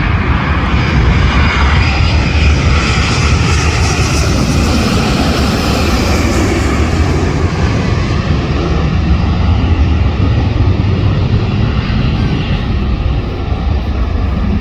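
Jet airliner passing low overhead on its approach to land: a loud engine roar with a high hiss and whine that peaks a few seconds in, then fades to a low rumble.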